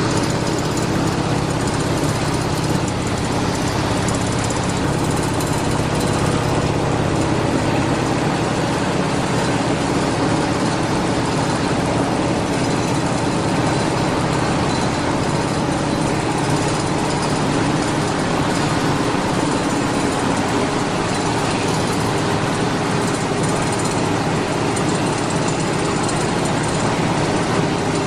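Frozen french fries processing line running: conveyor machinery gives a steady hum under an even, continuous rushing noise.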